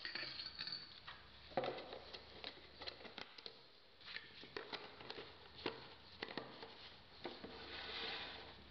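Faint handling noise of plastic jars, lids and cups being picked up, closed and set down on a table: scattered light clicks and taps, with a soft rustling near the end.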